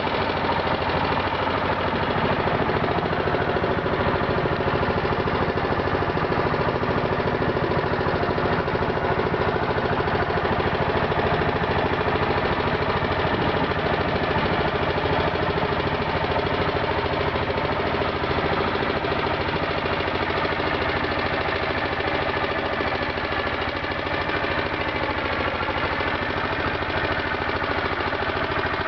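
Small passenger boat's engine running steadily while the boat is under way, a constant drone with no change in speed.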